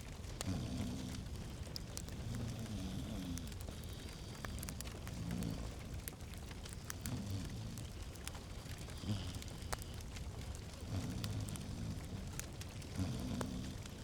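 Fireplace fire crackling, with irregular sharp pops and a low rumble underneath.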